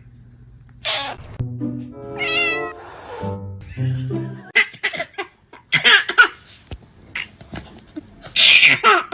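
A cat meowing over background music, followed by a run of sharp clicks and knocks and a loud noisy burst near the end.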